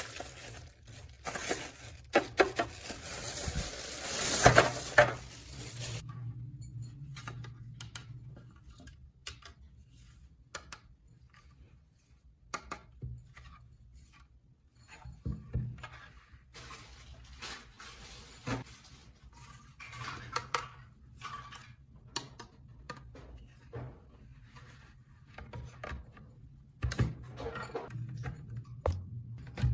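Small plastic toy pieces being handled, with scattered clicks and light clattering. A rustling noise runs through the first few seconds.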